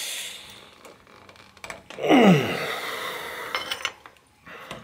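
A man strains to tighten a bicycle bottom bracket's fixed cup with a box-end wrench. There is a breathy exhale at first, then one groan of effort that falls sharply in pitch about two seconds in. Light metal clicks and scrapes of the wrench on the cup follow near the end.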